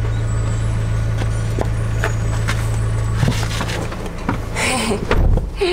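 A vehicle engine idling with a steady low hum that stops about three seconds in. Then clothing rustles and a few thumps as a person climbs into a car's driver's seat.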